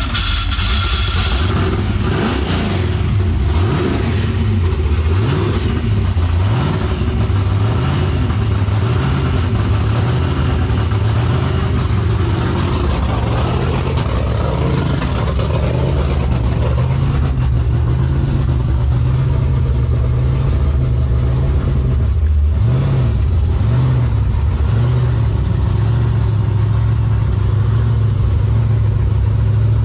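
Car engine running loudly, its pitch rising and falling as it revs, with a brief drop about twenty-two seconds in.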